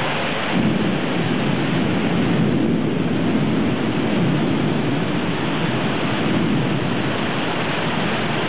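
Heavy rain pouring steadily, with a low rumble of thunder that starts about half a second in and rolls on to the end.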